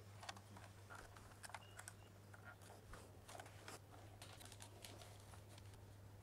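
Faint, scattered light clicks and taps from handling a mini LED projector and mounting it on a tripod head, over a low steady hum; otherwise near silence.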